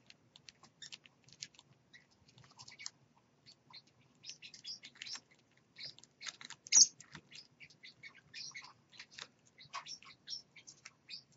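A small parrot cracking and eating seed at its food dish: a rapid, irregular run of tiny crisp clicks and crunches, mixed with soft bird chirps. One sharper, louder click stands out about two-thirds of the way through.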